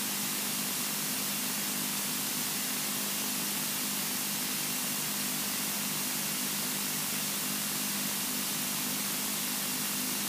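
Steady hiss over a low, even hum from the Robin DR400's engine at low power while the aircraft lines up on the runway, heard through the cockpit intercom rather than in the open cabin.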